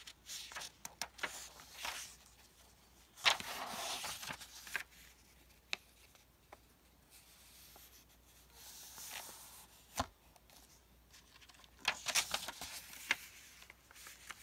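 Paper pages of a paperback book rustling as they are turned, folded and smoothed flat by hand, in a few short bursts with small clicks and taps between them; the loudest rustle comes about three seconds in.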